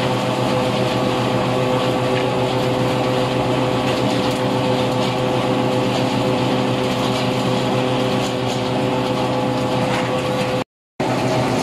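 6YL-series screw oil press running steadily while pressing oil: a constant mechanical hum with several steady whining tones. The sound drops out suddenly for a fraction of a second near the end, then resumes.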